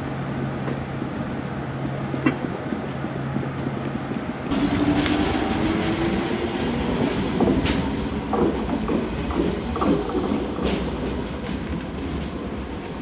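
A Dutch NS electric passenger train moves along the platform. A steady low hum gives way, about four and a half seconds in, to louder rumbling and clatter of wheels on rails with a slowly rising motor whine. Several sharp clicks and squeaks from the wheels come in the second half.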